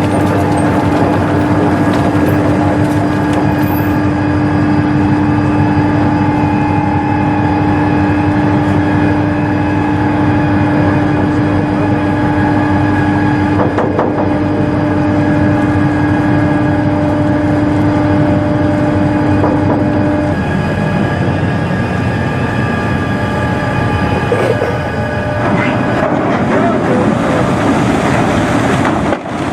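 A loud, steady mechanical drone with several held tones; the lowest tone stops about two-thirds of the way through.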